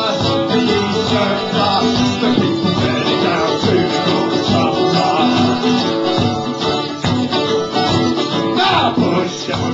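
Live acoustic band playing a blues number: strummed acoustic guitar and a second small plucked string instrument, with a man singing into a microphone.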